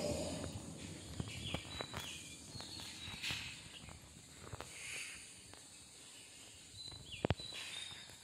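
Quiet footsteps on an asphalt road, with several short high bird chirps.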